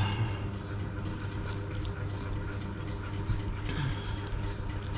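Quiet eating sounds: faint scattered clicks of a metal spoon on a plate and of chewing, over a steady low hum.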